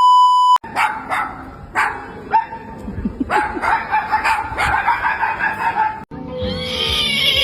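A short, loud electronic bleep, then a dog barking repeatedly for several seconds.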